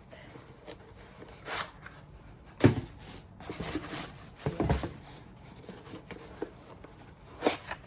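New shoes and their packaging being handled: scattered knocks and rustles, the loudest about two and a half seconds in, with a cluster of them around four to five seconds.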